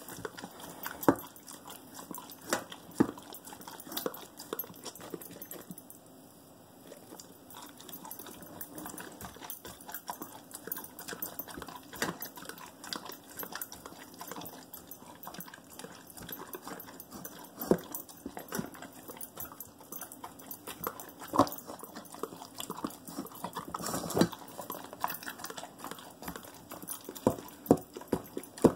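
A dog eating its dinner from a bowl: steady irregular crunching, chewing and licking clicks, with a few louder knocks spread through as its muzzle works the food around the bowl.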